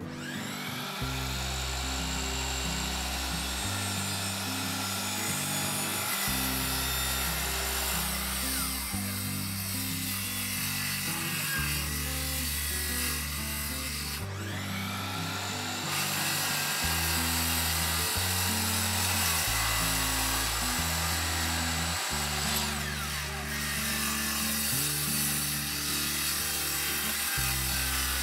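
Background music with a bass line that changes note every second or two, mixed with the noise of power saws cutting.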